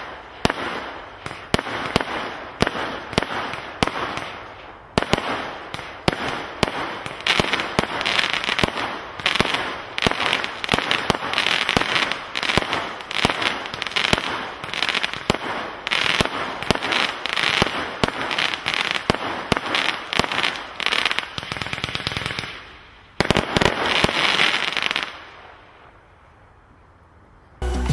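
Hallmark Witches Tongue firework barrage firing: a rapid run of shots and bursts, several a second, thickening into a dense finale about 23 seconds in before dying away near the end.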